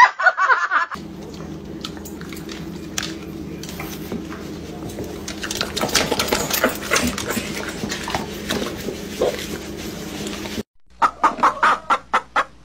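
Hens clucking in rapid short calls near the end, the loudest part. Before them comes a long stretch of steady low hum with scattered clicks, and a brief voice in the first second.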